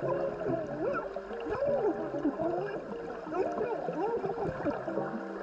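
A woman talking underwater: her voice comes through muffled and warbling, the words hard to make out.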